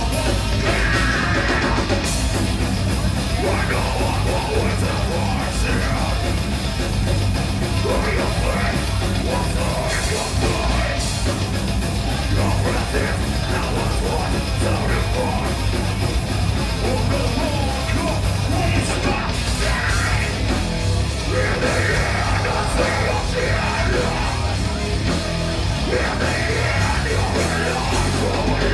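Live heavy metal band playing: distorted electric guitar, bass and drums, with the singer yelling into the microphone.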